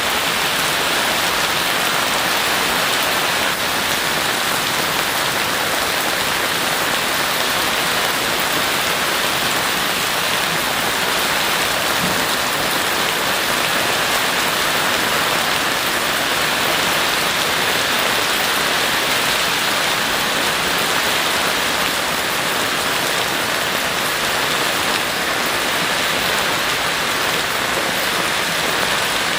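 Heavy rain falling steadily, an even hiss of rain on surfaces with no let-up.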